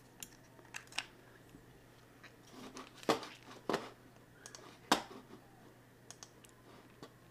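Small clicks and taps of hands handling a bare flash-drive circuit board and plugging it into a USB adapter on a workbench, with two sharper knocks about three and five seconds in.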